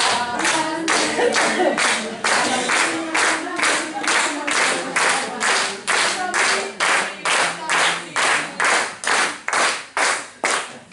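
A group clapping hands together in a steady rhythm, about two to three claps a second, with voices singing or calling along in the first half. The clapping stops at the end.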